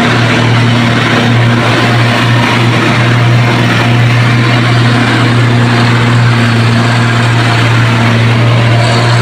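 Truck engine running steadily: a constant low drone with an even hiss of noise above it, unchanging throughout.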